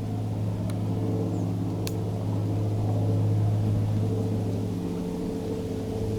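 A car driving, with its engine and road noise making a steady low drone and a couple of faint clicks.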